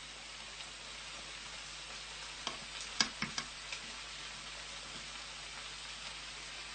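Light clinks of cutlery and crockery at a breakfast table, five or six in quick succession about two and a half seconds in, over a steady hiss.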